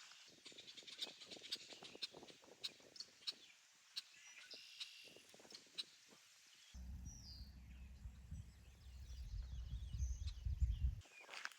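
Footsteps on the trail, with a few birds chirping. Then a low rumble starts suddenly about seven seconds in and cuts off about four seconds later.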